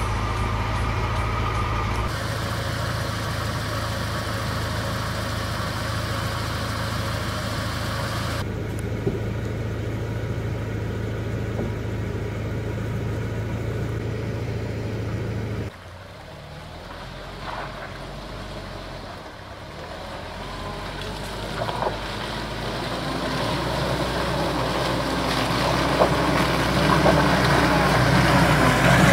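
A UAZ Patriot's engine running at a steady pitch. After a sudden drop in level, the UAZ approaches on a muddy forest track, its engine and tyres growing steadily louder, with a few short clicks along the way.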